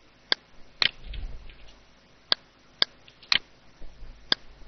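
Computer mouse clicking: about six sharp single clicks, several of them about half a second apart.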